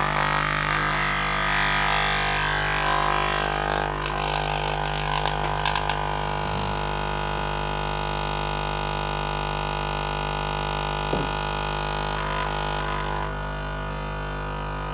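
Paradigm Titan woofer driven by an amplifier and oscillator with a 50 Hz tone, giving a steady low drone with many overtones. The tone keeps the cone centred while the glue on its new foam surround sets. A few faint light clicks come about four to six seconds in.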